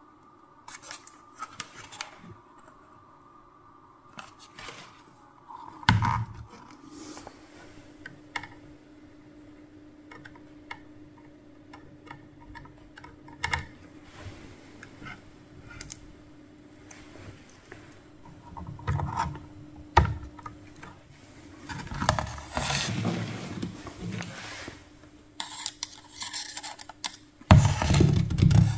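Handling noise from a subwoofer's metal amplifier plate and its circuit boards being turned over in the hands: irregular clicks, scrapes and knocks, loudest in a few clusters and in a knock near the end.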